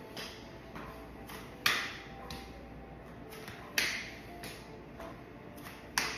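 Sharp slaps of a hand on a raised bare knee. The three loudest come about two seconds apart, with softer taps between.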